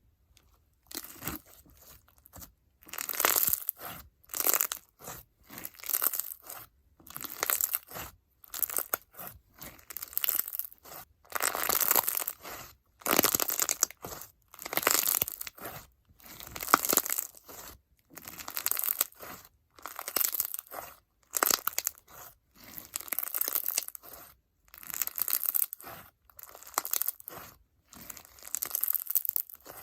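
Icee-jelly crunch slime packed with foam beads and bingsu beads being squeezed and worked by hand, crackling and popping in repeated bursts about once a second, starting about a second in.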